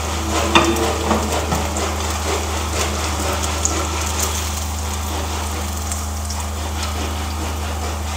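Vegetable fritters sizzling in shallow oil in a small nonstick frying pan, a crackling hiss with fine spits, while a plastic spatula knocks and scrapes against the pan as they are lifted out, most sharply about half a second in. A steady low hum runs underneath.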